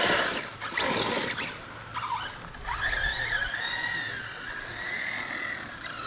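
Radio-controlled car's electric motor whining, its pitch rising and falling with the throttle over the last few seconds, after a short burst of noise at the start.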